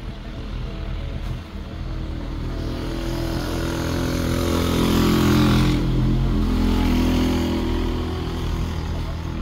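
A motor vehicle's engine running, growing louder to a peak a little past halfway and then fading, as if driving past.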